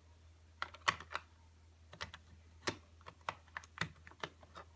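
LEGO Duplo plastic bricks clicking and knocking as they are handled and pressed together: a string of small, sharp, irregular clicks.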